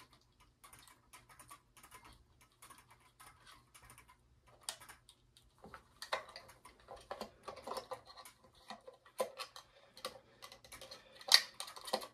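Small plastic clicks, taps and scrapes of a 9-volt battery being fitted into a kinetic desk toy's battery compartment, sparse at first and busier from about halfway, with one sharper click near the end.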